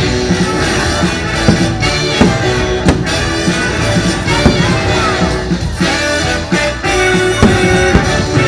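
Instrumental orchestral music led by brass, with no singing.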